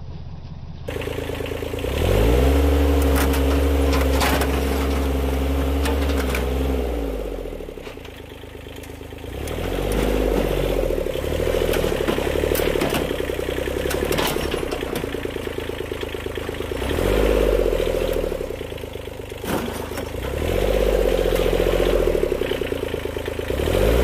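Kubota compact tractor's diesel engine running and revving up and settling back several times as the front loader is worked, with occasional knocks and scrapes of metal.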